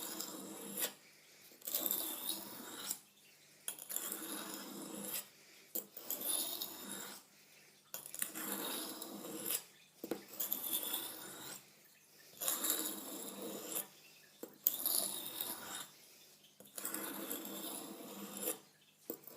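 Steel hunting-knife blade rasping in long, light strokes across a sharpening stone, one stroke every second and a half to two seconds with short pauses between, as the edge is finished.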